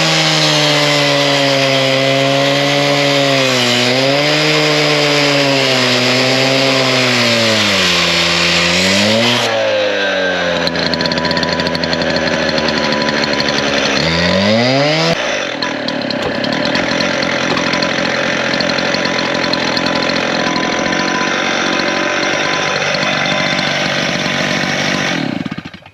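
Stihl TS 420 cut-off saw's two-stroke engine running under load as its blade cuts through a steel water-heater tank. The revs waver, sag about a third of the way in and again about halfway before climbing back, then settle into a steadier cutting sound. The saw stops suddenly just before the end.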